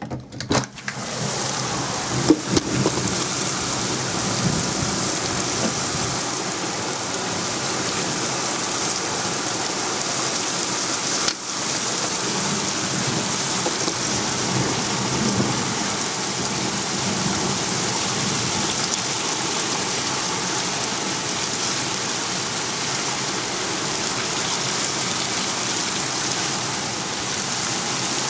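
Heavy thunderstorm downpour: rain pouring with a steady, loud hiss, briefly dipping about eleven seconds in.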